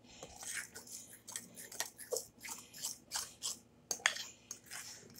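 Spoon stirring thick muffin batter in a glass mixing bowl: irregular soft scrapes and clicks against the glass, a few each second.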